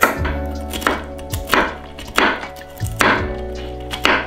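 A chef's knife chopping walnuts on a wooden cutting board: a run of sharp knocks, about two a second, as the blade strikes the board through the nuts.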